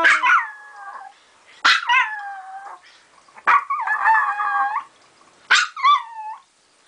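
Small dog howling: a run of short howls with pauses between, each sliding down in pitch, the longest one in the middle wavering.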